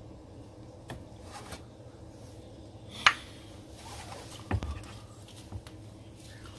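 Metal clinks and knocks of hand tools on a car battery's terminal clamps and hold-down as the battery is being disconnected. A sharp clink about three seconds in is the loudest, with a knock a second and a half later and a few lighter clicks around them.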